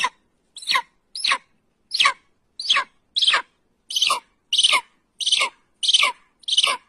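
A bird calling shrilly again and again: about a dozen short screeches, each a quick downward sweep, coming roughly every half second.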